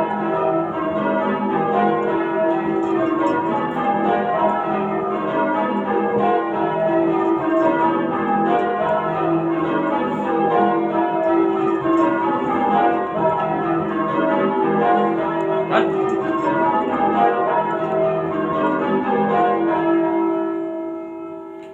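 Change ringing on a ring of eight church bells in E with a 19 cwt tenor, cast between 1739 and 1914 by Thomas Bilbie and Llewellins & James. The bells strike one after another in an even, repeating descending order, ringing rounds after the touch has been called to an end. Near the end the ringing stops and the bells hum away.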